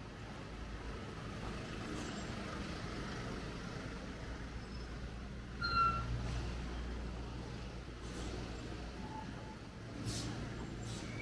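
City street traffic: vehicles passing on the road with a steady engine and tyre rumble that swells about six seconds in and again near the end. A brief high squeak comes about six seconds in.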